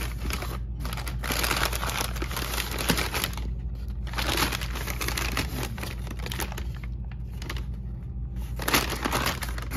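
Plastic and paper grocery bags rustling and crinkling as they are handled, on and off with short pauses.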